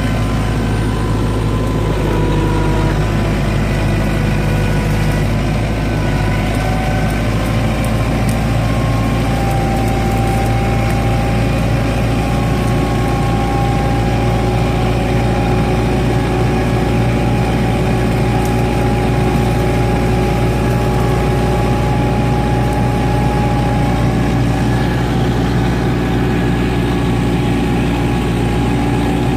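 Kubota compact tractor's diesel engine running steadily, heard close up from the operator's seat, with a whine over it that shifts slightly in pitch now and then.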